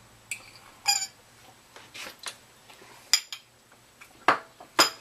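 A metal fork clinking and scraping against a small ceramic bowl, scooping out the last of the creamed spinach: several sharp, irregular clinks, some with a short ring.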